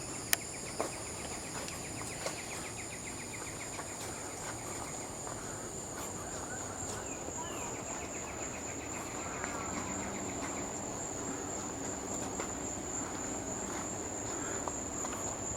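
Insects trilling steadily at a high pitch, cricket-like, with a few faint clicks.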